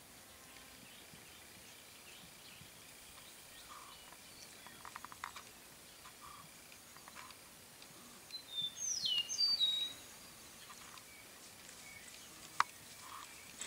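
A bird calling: a short run of high whistled notes, some sliding downward, about eight to ten seconds in, over quiet outdoor background noise with a few faint clicks and one sharp click near the end.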